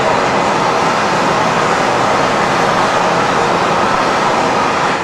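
Steady, loud rushing noise of a glass workshop's gas-fired furnace and burners, even throughout with no distinct events.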